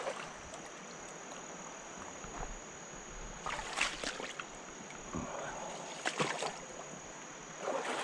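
Shallow river water splashing and sloshing in several short bursts as a person wades and clambers over rocks at the water's edge, over a steady high-pitched insect drone.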